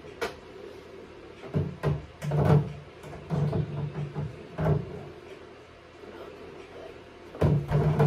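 Knocks and clatter of food containers and items being set down and shifted on refrigerator shelves. The knocks come in irregular clusters, about one and a half to three seconds in, near four and a half seconds, and again near the end.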